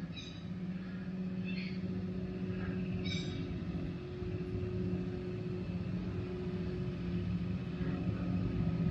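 Minn Kota electric trolling motor running out of the water at a fairly fast setting with a steady hum, while its loosened motor housing is turned to find the sweet spot where it runs fastest. A few faint scrapes come in the first three seconds.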